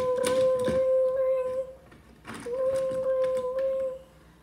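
A person humming two long, steady notes at one pitch, with a short break between them, over a few sharp clicks of toy train pieces being handled.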